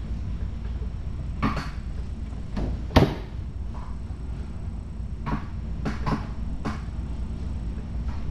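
Computer mouse and keyboard clicks: several short, sharp clicks scattered through the stretch, the sharpest about three seconds in, over a steady low hum.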